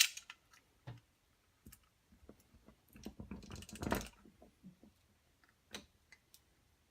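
Scattered light clicks and taps of small crane-model parts, a screw and washer, being handled and fitted by hand, with a short denser scraping rattle about three seconds in.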